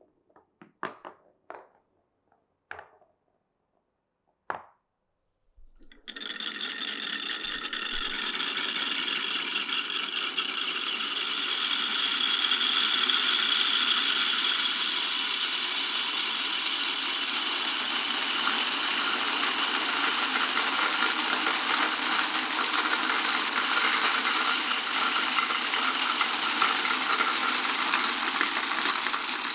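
A few separate marble clicks, then about six seconds in a dense, continuous clatter begins: many marbles rolling and rattling together down a wooden and plastic marble run.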